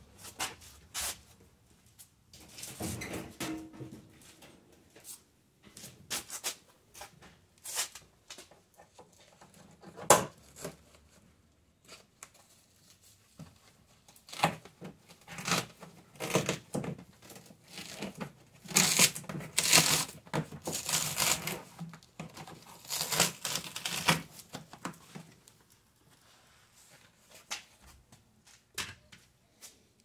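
Foam water shield being peeled off a car's inner door frame: the adhesive tears and the sheet crinkles in irregular bursts, with scattered clicks and knocks, busiest in the second half.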